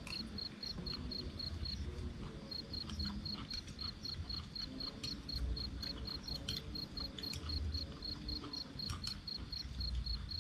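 A cricket chirping in an even pulsed trill, about four to five pulses a second, pausing briefly about two seconds in. Scattered light clicks and a low rumble run underneath.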